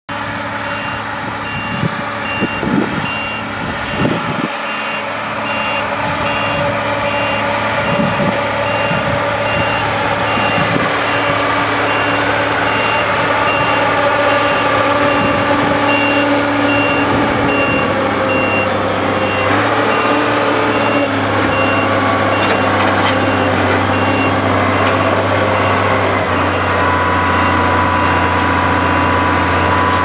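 Hidromek MG 330 motor grader's diesel engine running steadily under load while levelling soil, with a back-up alarm beeping in a regular pattern throughout. The engine note gets stronger about two-thirds of the way through.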